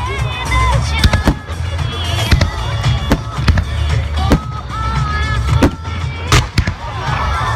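Fireworks going off in a string of sharp bangs and cracks, the loudest about six seconds in, over loud music with a heavy bass.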